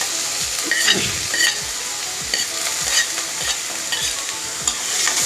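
Chopped onions sizzling in hot oil in a pan as they are stirred and sautéed, with the spatula scraping and clicking against the pan now and then over a steady frying hiss.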